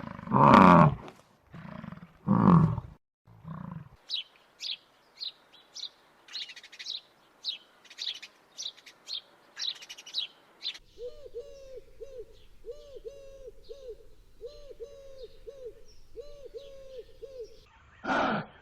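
A sequence of animal calls. First come several loud, deep roars. A bird then chirps high and short, about twice a second, followed by a quick series of low hooting notes, and a single loud animal call comes near the end.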